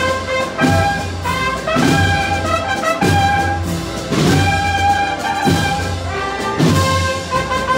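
A Spanish procession wind band (banda de música) playing a march: brass carrying the melody over low drum beats.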